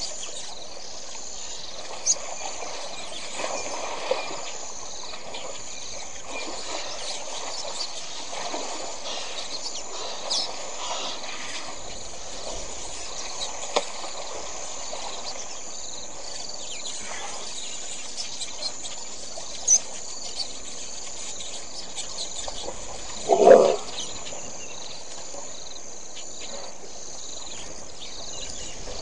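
Outdoor ambience of steady insect chirring, with scattered soft splashes and knocks as elephants wallow and wrestle in shallow muddy water. One brief, louder sound comes about three-quarters of the way through.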